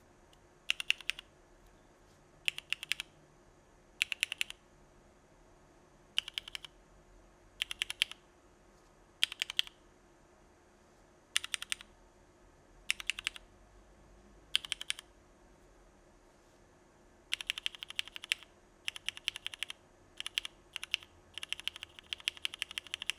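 Mechanical keyboard typing: Cherry MX Black Clear Top (New Nixie) linear switches with Krytox-lubed stems, in a Frog keyboard with an aluminum plate and no foam or dampening, under CRP Desko keycaps. Short flurries of a few keystrokes come about every one and a half to two seconds. For the last six seconds the typing is steadier and faster.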